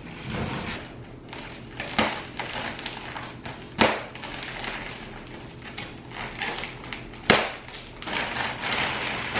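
Plastic wrapping on a rolled-up rug crinkling and rustling as it is cut and pulled open with scissors, with three sharp snaps, the loudest about two-thirds of the way through.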